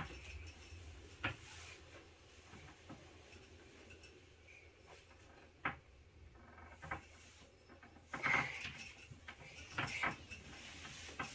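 Scattered light knocks, clicks and rustles from a child shifting her weight in an aerial yoga hammock, with a louder scrape or thump about eight seconds in and another near ten seconds.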